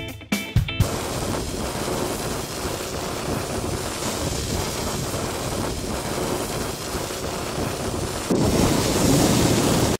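Steady rushing noise with no pitch or rhythm, growing louder about eight seconds in and cutting off abruptly.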